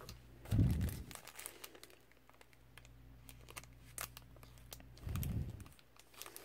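Clear plastic packaging of a stamp and die set crinkling and crackling as it is handled. Two dull low thumps come about half a second in and again about five seconds in.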